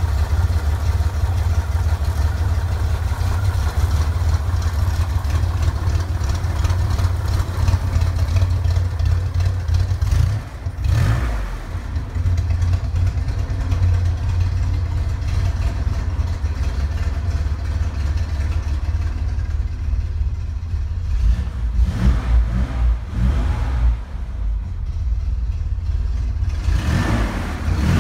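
1961 Chevrolet Corvair Rampside's air-cooled flat-six engine idling steadily.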